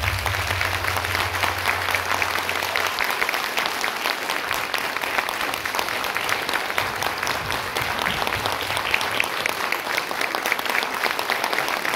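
Audience applauding: dense, steady clapping from a crowd. A low held note left over from the dance music dies away about three seconds in.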